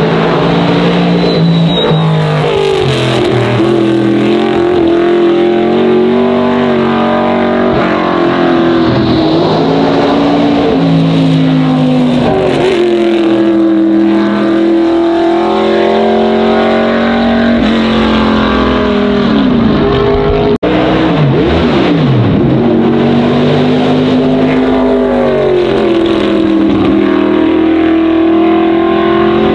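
Race car engines at racing speed on a road circuit, their pitch climbing under acceleration and dropping back as cars shift and brake, one after another without a break. There is a brief dropout about two-thirds of the way through.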